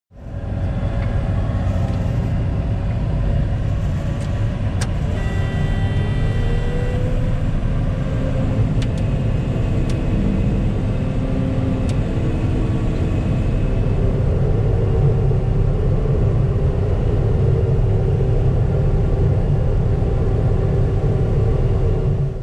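Truck driving: a steady low engine and road rumble.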